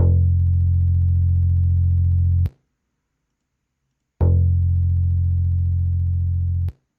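A low sustained instrument sample played back twice in the Hydrogen drum machine's sample editor. Each note lasts about two and a half seconds, holds an almost even level and then cuts off sharply, with a pause of under two seconds between them.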